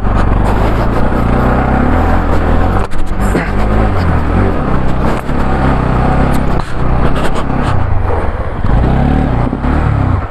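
Motorcycle engine revving hard under load on a rough off-road climb, its pitch rising and falling unevenly.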